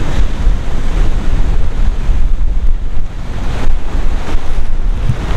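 Strong wind buffeting the microphone with a heavy, uneven low rumble, over the steady wash of sea surf.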